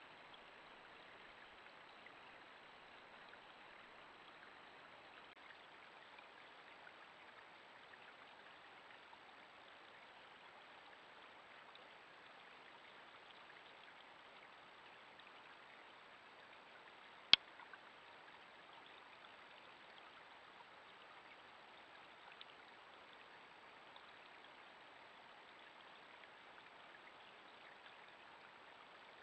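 Faint steady hiss, like water trickling at a beaver dam. A single sharp click about seventeen seconds in.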